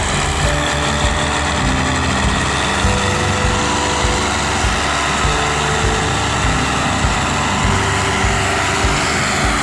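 Background music with a steady beat of just under two thumps a second, with the diesel engines of two tractors working hard under a heavy tow mixed in underneath.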